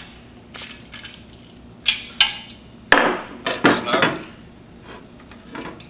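Perforated metal butterfly cable hanger clanking as it is handled and set on a table: several sharp metallic knocks spread over a few seconds.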